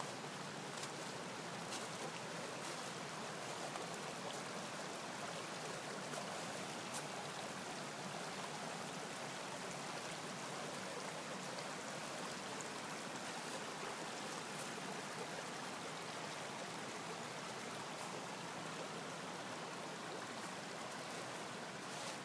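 Steady rushing noise of shallow floodwater flowing fast across a path and lawn.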